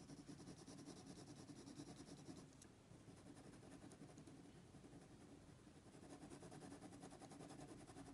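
Faint, fast back-and-forth scratching of a hard 4H graphite pencil shading on drawing paper. The strokes ease off for a few seconds in the middle, then pick up again.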